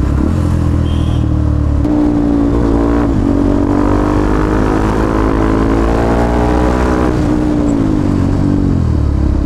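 KTM 390 Duke (third generation) single-cylinder engine under way. Its revs climb steadily from about two seconds in as the throttle is opened, then fall away as it closes near the end.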